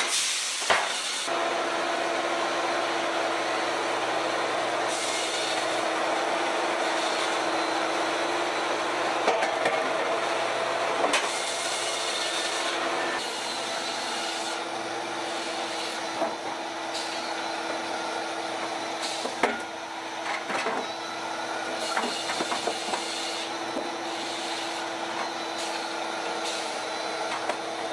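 Sawmill machinery running steadily, with scattered short knocks of sawn timbers being handled and set down.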